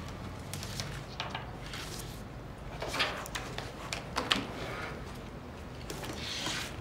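Papers and folders being handled at a table: several short rustles and taps, the clearest about three and four seconds in, and a longer paper swish near the end, over a low steady room hum.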